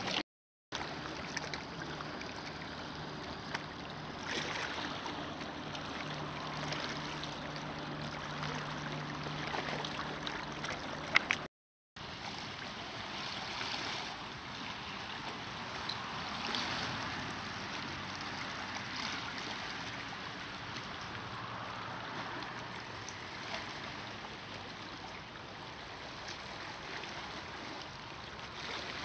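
Small waves lapping against the stones and pebbles of a rocky lakeshore, a steady wash of water, broken twice by a brief silent gap.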